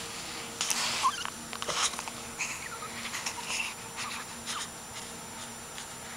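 A pet dog making a few short, breathy noises at irregular intervals, the loudest about a second in.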